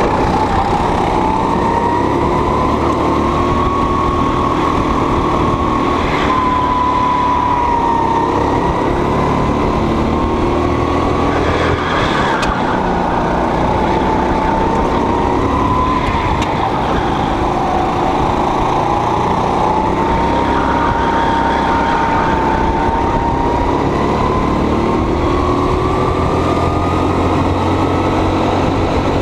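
Go-kart engine running hard under the driver's seat, its pitch climbing and dropping several times as the driver accelerates and lifts through the lap, with a steady rumble underneath.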